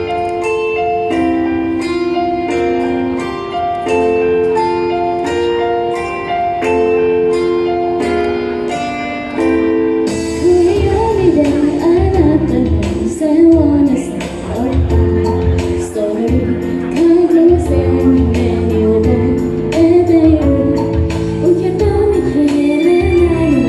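Upbeat idol pop song. An instrumental passage of held chords over a steady beat gives way to female vocals singing the melody about ten seconds in.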